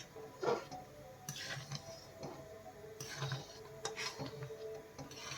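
Spoon or ladle scraping and knocking against a metal pan while stirring a thin besan halwa as it simmers, in irregular strokes; the loudest knock comes about half a second in.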